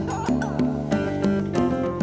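Background music: an acoustic guitar plucked in a steady, even rhythm.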